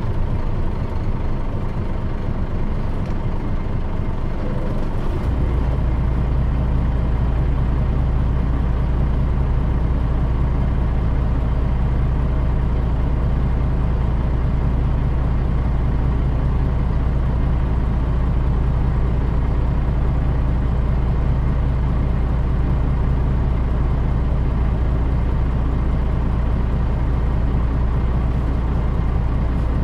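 2002 Mitsubishi Fuso Aerostar KL-MP35JM city bus running, heard from on board: a low, uneven rumble that about five seconds in settles into a steady low engine drone.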